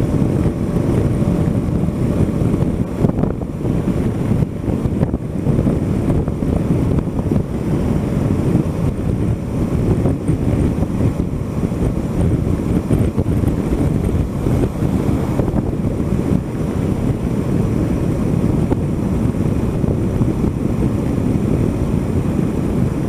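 Wind rushing and buffeting over the microphone of a camera on a Honda Africa Twin CRF1000L motorcycle at about 105 km/h on the highway. It is a steady, low rush with no clear engine note standing out.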